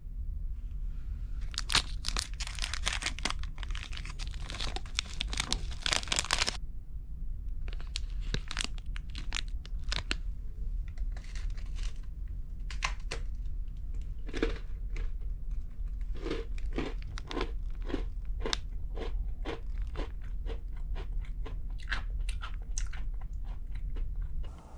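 Clear plastic wrapper crinkling as a crisp biscuit is unwrapped, then the biscuit being bitten and chewed, with a run of short crunches.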